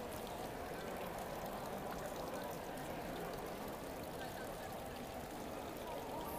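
Steady background murmur of a crowd: a dense wash of distant, indistinct voices with no single word standing out.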